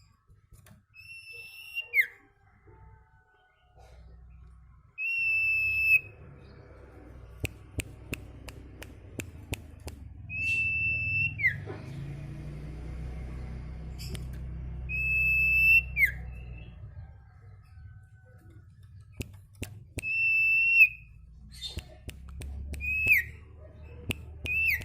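Sirtu songbird repeating a loud, drawn-out whistle that is held on one high note and then drops sharply at the end, about every five seconds. Between the whistles it gives sharp clicking notes (the 'ceplekan').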